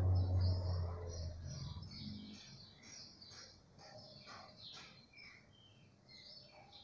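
Small birds chirping and twittering, faint, with many short high chirps throughout. A low hum fades out over the first two seconds or so.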